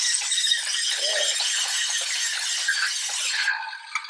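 Road Rippers Off Rumbler battery-powered toy dune buggy running on a hard floor, a dense plastic rattle with fine clicking. It cuts off suddenly about three and a half seconds in.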